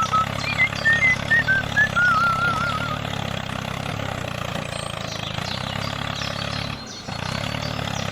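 Steady low engine idling, with quick high chirps and a warbling whistle over it in the first three seconds. The hum drops out briefly about seven seconds in.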